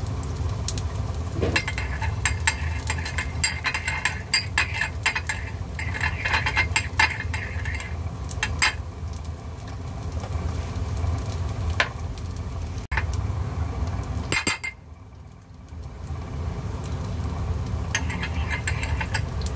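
A metal spoon clinks and scrapes against a small ceramic bowl while a sauce is stirred. The rapid taps come mostly in the first half, with a few scattered later, over a steady low hum.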